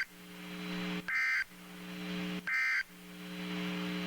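NOAA Weather Radio SAME end-of-message data bursts: short, high-pitched digital warbling bursts repeating about every 1.3 seconds, two of them plus the tail of a third right at the start. A steady low electrical hum fills the gaps between them.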